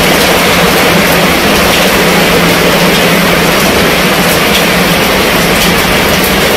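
Steady rain falling on the fabric roof of a canopy tent, with scattered single drops ticking through the even hiss.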